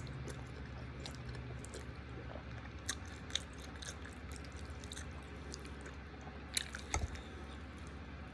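Person chewing a mouthful of creamy chicken Alfredo pasta, with soft wet mouth clicks over a steady low hum and a few louder clicks about three seconds in and near seven seconds.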